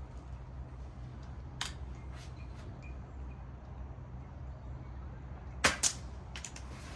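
Sub-12 ft-lb air rifle shot: a sharp crack followed about a quarter second later by a second, slightly quieter crack. A few light handling clicks come a few seconds before it, over a steady low hum.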